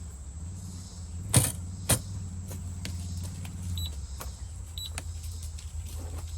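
A small electric motor runs with a steady low hum, strongest for the first few seconds. Two sharp knocks come about a second and a half and two seconds in, and two short, high electronic beeps follow later.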